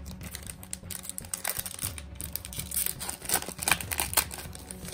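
Foil wrapper of a Panini Hoops Premium Stock basketball card pack crinkling and tearing as it is pulled open by hand: a quick run of crackles and rustles, loudest a little past the middle.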